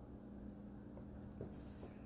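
Rabbit nibbling and chewing soft banana from a hand: faint, soft chewing with a few small clicks, over a steady low hum.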